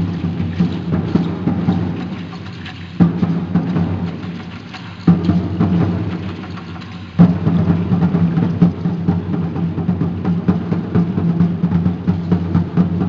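Large upright Aztec dance drums (huehuetl) beating a steady dance rhythm. The beat softens and is punctuated by three loud single strokes about two seconds apart, then continues full and steady.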